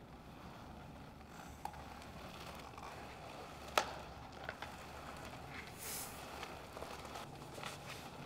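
Quiet rustling and handling sounds of clothing and gear, with scattered small clicks and one sharp click about four seconds in.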